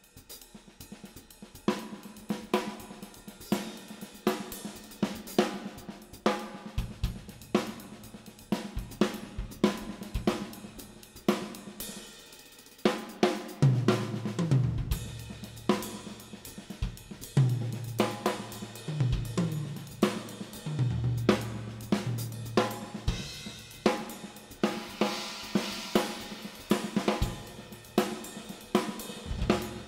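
Yamaha drum kit with Sabian cymbals played in a steady groove: hi-hat patterns over snare and bass drum, with regular accented hits. Low sustained notes join in about halfway through.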